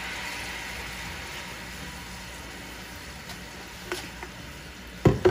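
Honey syrup sizzling and bubbling in a hot stainless saucepan, a steady hiss. A light click about four seconds in and a louder knock near the end, from the spoon and utensils against the pan.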